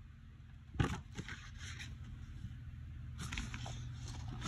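Rustling and scraping handling noise with one sharp knock about a second in and scattered small clicks later, over a low steady hum.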